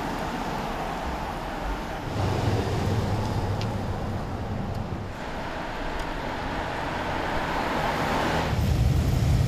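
Road vehicles of a procession passing by: a steady rush of engines and tyres that shifts as each goes past, with a deeper engine rumble coming in near the end.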